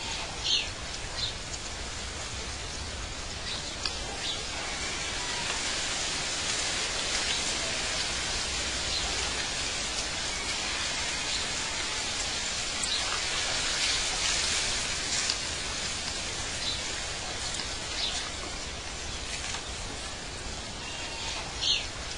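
Outdoor ambience of birds chirping now and then: a few short, high calls near the start, later on and near the end, over a steady, even hiss.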